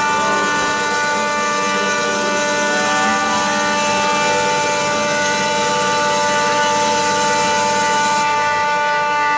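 Boat horn blowing one long, unbroken blast, several tones sounding together as a chord.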